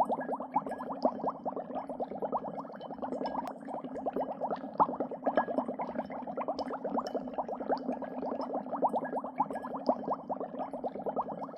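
Dry ice bubbling in water: a fast, continuous stream of small bubbles popping, many each second, over a steady low burble.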